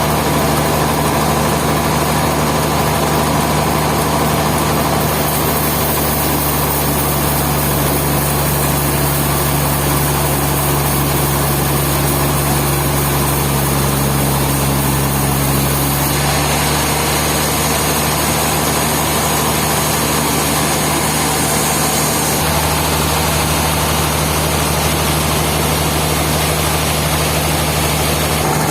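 Sawmill machinery running with a steady engine-like hum, its tone shifting abruptly a few times.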